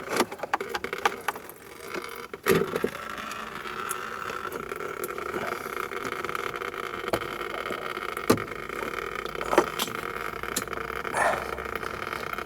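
Scattered clicks and knocks of hands working on the plastic washer pump and reservoir parts of a car, with one louder knock about two and a half seconds in and a few sharp clicks later, over a steady background hum.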